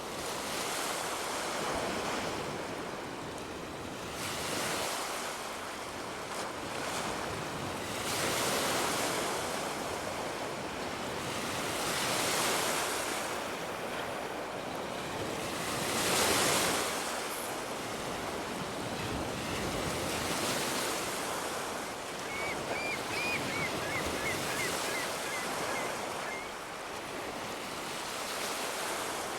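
Ocean surf breaking and washing up a beach, swelling and falling every few seconds, the loudest surge about 16 seconds in. About 22 seconds in a gull calls a quick string of short notes lasting about four seconds.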